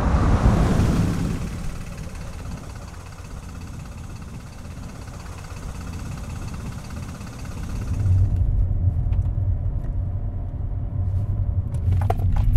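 A Mazda saloon passes close by at speed: tyre and engine noise swell in the first second, then fade to a steady low rumble. About eight seconds in, the sound switches to inside the moving car's cabin, a steady low engine and road rumble with a few sharp clicks near the end.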